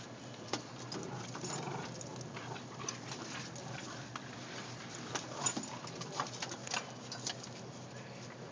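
A Boston terrier, an English bulldog and a bulldog–shih tzu mix playing and wrestling on carpet: scattered scuffles and short taps of paws and bodies, busier past the middle, over a steady low hum.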